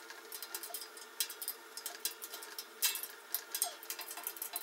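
Scattered light clicks and taps of a steel utility cart's metal parts being handled and fitted together during assembly, irregular, with a few sharper clicks.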